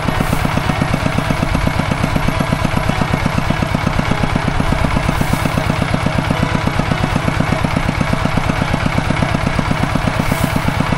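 Two-wheel walking tractor's single-cylinder diesel engine running steadily with a fast, even chugging beat.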